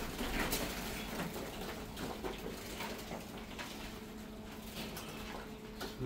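Irregular scuffs, taps and light knocks from doves being handled and moved into a cage, over a faint steady hum.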